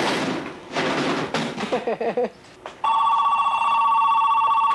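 A telephone ringing: one long trill of two close tones warbling rapidly, starting about three seconds in and lasting nearly two seconds. Before it there is a noisy stretch with a brief voice.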